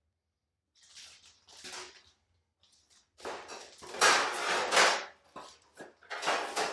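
Packaging and new sheet-metal floor-pan panels being handled and laid out: irregular rustling and scraping, loudest about four to five seconds in.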